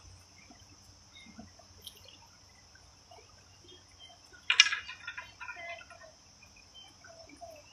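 Quiet outdoor background with a steady high-pitched insect chirring. A short, louder pitched sound comes about halfway through.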